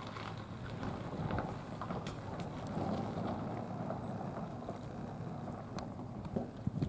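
Wind rumbling on the microphone over a steady low hum, with a few small clicks scattered through.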